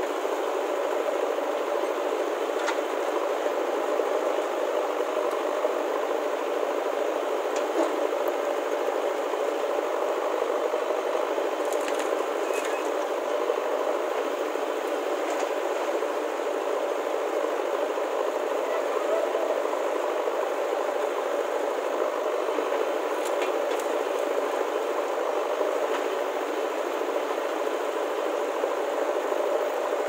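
JCB 3DX backhoe loader's diesel engine running steadily while the backhoe digs, with a few light clicks scattered through it.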